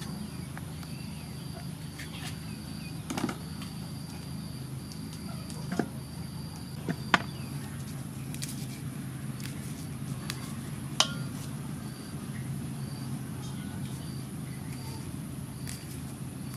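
Hands pulling apart a red bell pepper and stripping leaves off fresh herb sprigs: a few short sharp snaps of pepper flesh and stems scattered through, over a steady low background hum with a faint high pulse repeating at an even pace.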